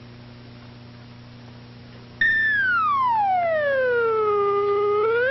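Comic slide-whistle sound effect marking a slide down a rope. After about two seconds of faint film-soundtrack hum, a loud whistle tone starts suddenly, glides steadily down for about three seconds, and then swoops back up at the very end.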